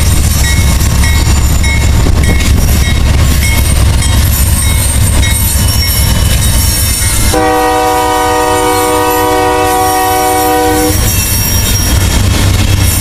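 Diesel locomotives of a loaded coal train, a GE AC44CW in the lead, rumbling past at close range. About seven seconds in, the locomotive horn sounds one long blast of about three and a half seconds, then cuts off while the engines and wheels keep going.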